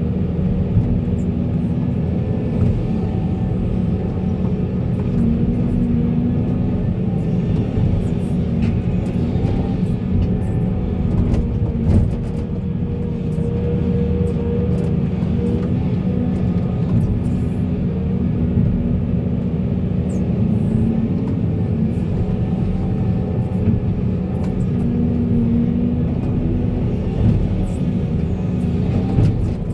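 Volvo excavator's diesel engine running steadily under working load, its pitch rising and falling a little now and then, with scattered sharp knocks and clicks.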